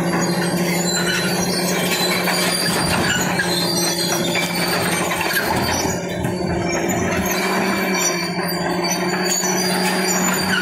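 Caterpillar D6 crawler bulldozer working under load. Its diesel engine drones steadily, and its steel tracks squeal as it pushes earth and broken sandstone with the blade.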